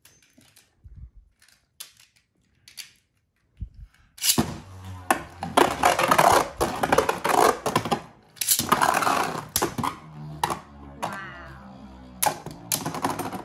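Two Beyblade Burst spinning tops are launched into a plastic stadium about four seconds in, then clatter, scrape and collide against each other and the stadium walls in dense runs of rapid clicks. There are a few soft handling clicks before the launch.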